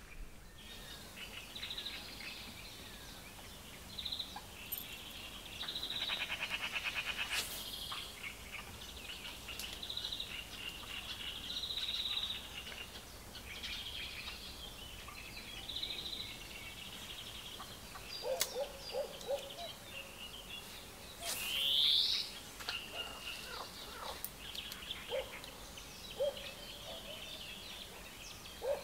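Songbirds calling and chattering, with short chirps throughout, a fast buzzy trill about six seconds in, and a loud rising call a little after twenty seconds.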